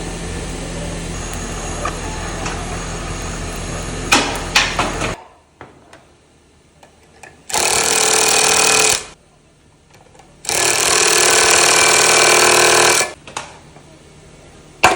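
A power tool run in two bursts, about a second and a half and then about two and a half seconds, during the dismantling of an electric fishing-line drum. Before them a steady machine hum runs for about five seconds and ends with a few sharp knocks; a few more knocks come near the end.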